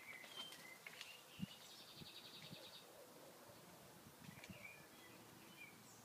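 Garden birds chirping faintly, with a quick high trill of rapidly repeated notes from about a second and a half to three seconds in, and short chirps again later on. A single low thump about a second and a half in.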